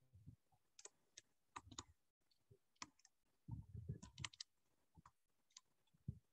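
Near silence with faint, irregular clicks and soft taps of a stylus writing on a pen tablet.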